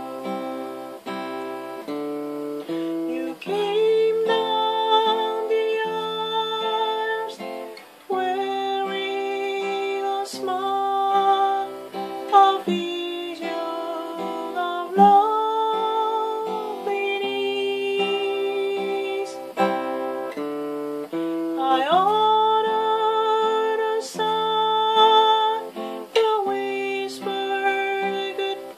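Acoustic guitar picked in a steady rhythm under a voice singing long held notes that scoop up into pitch, with no clear words.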